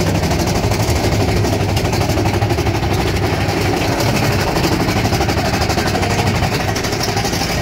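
Arrow mine-train roller coaster running along its track at speed, a steady loud rumble and fast rattling clatter of the train cars.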